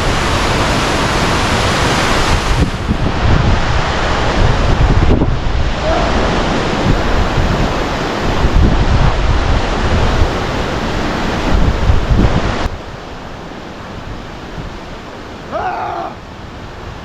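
Heavy wind buffeting on the microphone over a rushing hiss, gusting in the low end, which cuts off abruptly about three-quarters of the way through and leaves a quieter hiss. A short shout is heard near the end.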